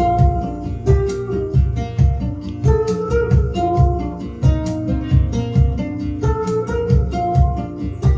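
Instrumental break of a song: guitar melody over bass and a steady drum beat.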